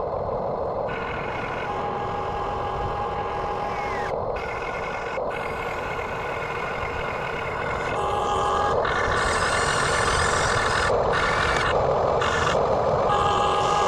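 Remote-control backhoe excavator running: a steady mechanical noise with a thin high tone that comes and goes, getting louder about eight seconds in.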